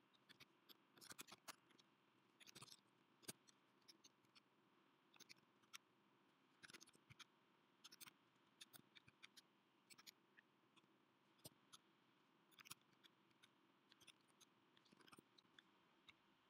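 Computer keyboard typing: faint, irregular key clicks, mostly in quick runs of several keystrokes with short pauses between.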